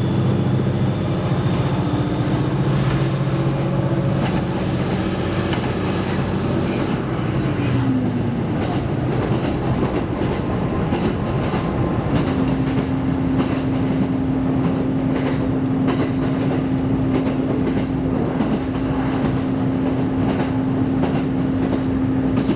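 KiHa 127 series diesel railcar running: a steady drone from the engine and drive, whose pitch slides down about a third of the way in before a new steady hum sets in about halfway through, with the wheels clacking over rail joints.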